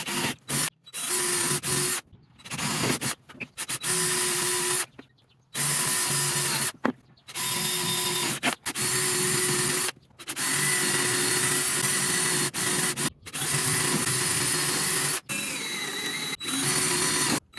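Power drill boring bolt holes through Douglas fir slats in a string of short runs of about one to two seconds each. Each run starts and stops abruptly, with brief silences between them.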